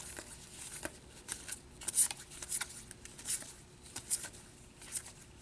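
Trading cards being flipped one after another through a stack: light, irregular flicks and slides of card stock, the sharpest about two seconds in.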